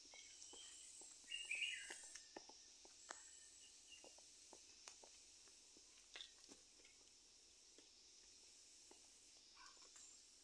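Faint outdoor ambience over a steady high hiss: scattered light footsteps and small clicks on a concrete path, with a brief bird chirp about a second and a half in.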